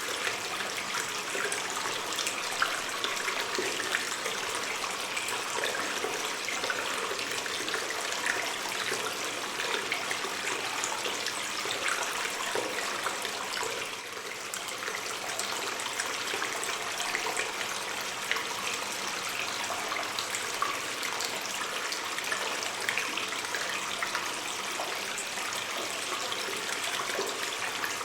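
Cave ambience of a flowing water stream: a steady rush of water with many small drips and splashes scattered through it.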